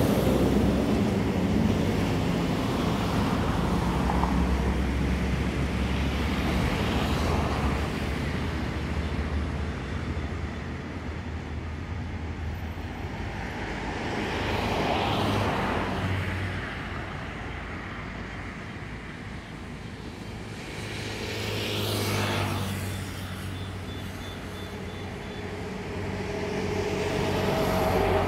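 Road traffic on a busy avenue: several vehicles pass one after another, each swelling and fading, over a low steady engine hum that comes and goes.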